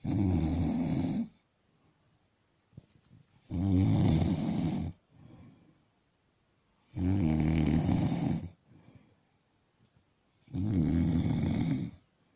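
Rhythmic snoring: four loud snores, one about every three and a half seconds, each lasting over a second, with faint breaths in between.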